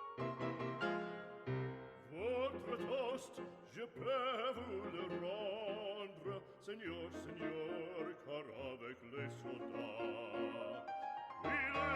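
Background music: classical opera singing with vibrato over an instrumental accompaniment.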